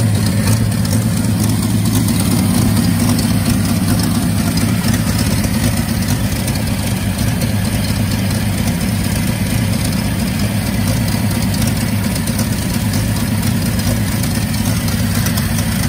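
1962 Bedford TJ truck's engine idling steadily, with a ticking that the owner puts down to oil going into all the small holes.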